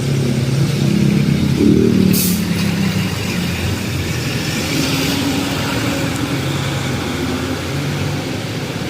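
Vehicle engines running in street traffic on wet roads, with a short hiss about two seconds in.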